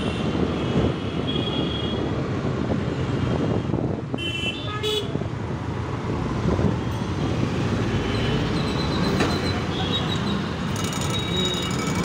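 Busy street traffic heard from a moving scooter: a steady rumble of engines and road, with several vehicle horns honking, the loudest about four seconds in and more near the end.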